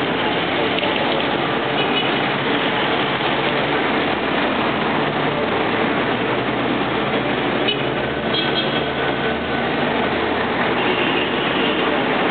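Steady rushing background noise, with a few faint high tones about eight seconds in and again near the end.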